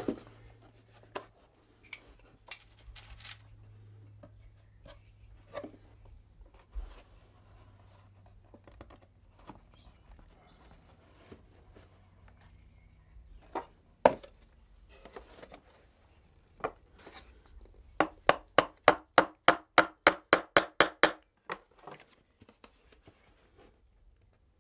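Hammer tapping a nail into the wooden stand of a garden trug: a quick even run of about fifteen light strikes, about five a second, lasting some three seconds towards the end. Before it come scattered knocks of the wooden basket being handled, with one sharp knock about halfway through.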